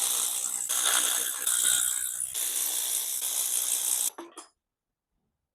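Metal rattling and clattering from tools and engine parts in several joined stretches, as the main bearing caps are loosened and removed from a Mercedes M110 engine block. It stops suddenly about four seconds in, with one last click just after.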